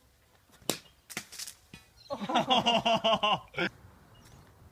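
A cricket bat strikes the ball sharply less than a second in, followed by a few lighter knocks. About two seconds in comes a loud yell lasting a second and a half.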